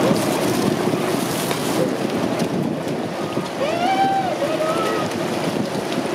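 Water churning and splashing as a tightly packed mass of catfish thrash at the surface for food, with wind on the microphone. A short sliding call cuts through near the middle.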